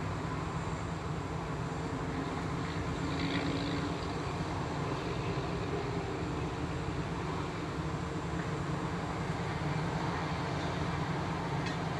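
Steady low mechanical rumble with a constant hum, like heavy machinery or a large engine running.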